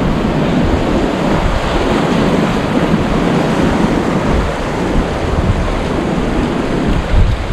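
Sea surf breaking and washing over rocks, with wind buffeting the microphone.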